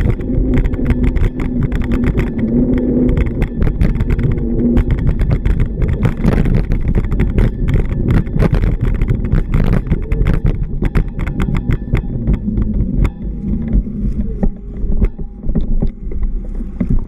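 Road traffic on a city street: a motor vehicle's engine running close by, with a steady low hum for the first few seconds, under a constant rumble and frequent sharp clicks and knocks.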